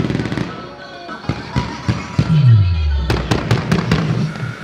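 Fireworks over a music soundtrack: the music runs throughout with a deep falling tone in the middle, and about three seconds in a quick run of about six sharp firework bangs follows within about a second.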